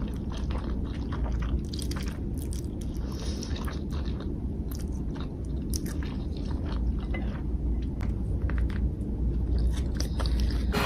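Close-miked mukbang eating: wet chewing and biting of spicy Buldak noodles, with many quick mouth clicks over a steady low hum.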